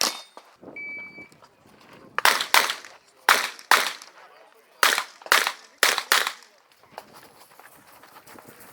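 A shot timer's start beep, then a competition revolver fired eight times in quick pairs.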